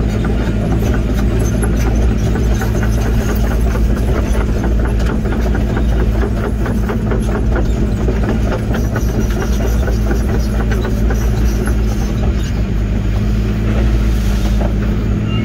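Link-Belt 145 excavator's diesel engine running steadily under load, with a long run of snaps and cracks through the middle as trees and limbs are broken down.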